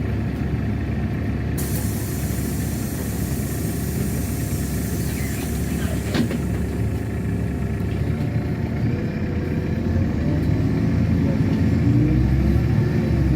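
Inside a LiAZ-6213.65 articulated city bus: the engine and running gear rumble steadily, with a hiss for a few seconds early on and a single click about six seconds in. From about ten seconds the engine note rises and grows louder as the bus pulls away.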